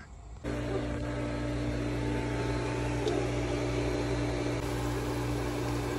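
Pool pump's electric motor running with a steady hum, which begins suddenly about half a second in.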